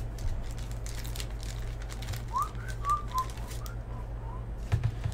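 A few short whistled notes a couple of seconds in, the first sliding upward. Under them come light clicks and rustles of trading cards and a pack wrapper being handled, over a steady low electrical hum.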